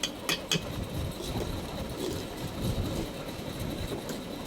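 Metal clicks and rattling of a ceiling fan's clips and screws being fitted during reassembly, over a steady rumbling noise; the sharpest clicks come in the first half-second.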